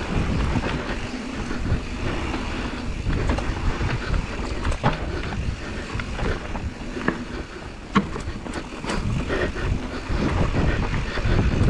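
Mountain bike descending a dirt downhill trail: tyres rolling over packed dirt with rushing air, the bike rattling and giving sharp knocks over the bumps, the loudest about eight seconds in. The noise grows louder near the end as speed picks up.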